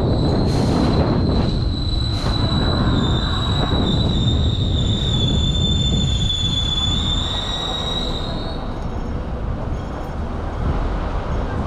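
Steel wheels of a Hong Kong double-decker tram squealing against the rails: one high, steady squeal that drifts slightly in pitch and stops after about eight and a half seconds. Under it runs the low rumble of the tram moving along the track.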